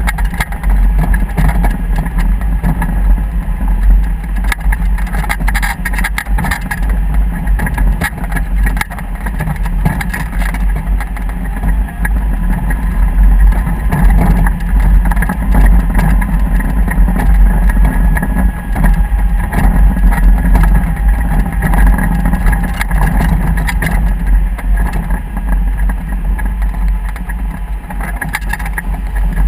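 A motor running steadily while travelling, with a heavy low rumble.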